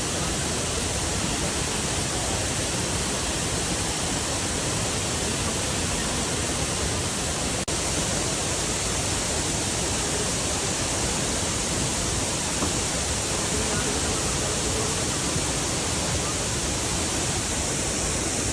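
Steady rush of a large waterfall, falling water heard close by, cutting out for an instant about eight seconds in.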